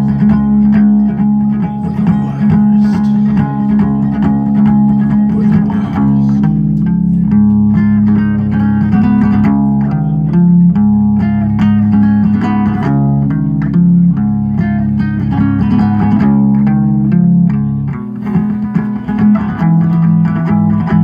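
Solo ukulele played live in an instrumental passage with no singing: steady low notes that change about once a second under a picked melody of shorter notes.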